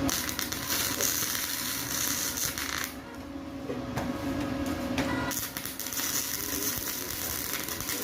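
Stick (arc) welding on steel channel: the electrode arc crackles and sizzles for about three seconds, pauses briefly with a couple of clicks, then strikes up again and crackles on.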